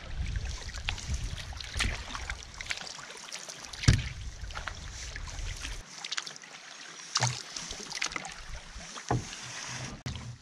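Canoe paddling: paddles dipping and splashing, water slapping against the hull, and gusts of wind on the microphone coming and going. A sharp knock about four seconds in is the loudest sound.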